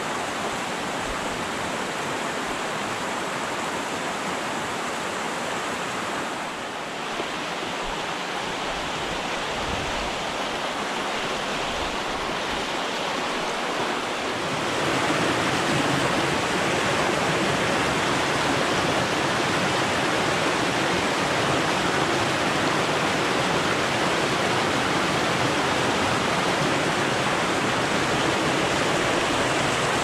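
Small mountain stream rushing over rocks and little cascades: a steady rush of water that gets louder about halfway through.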